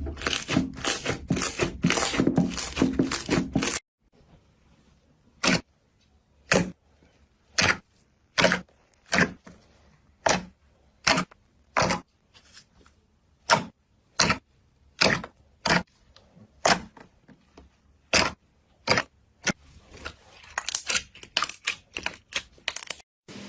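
Slime being squeezed and poked, giving crisp crackles, then a run of single sharp pops about a second apart, with denser crackling again near the end.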